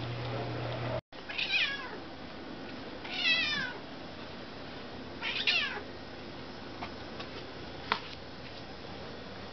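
Kittens mewing three times, about two seconds apart: high cries that fall steeply in pitch, while they wait to be fed. A single sharp click follows near the end.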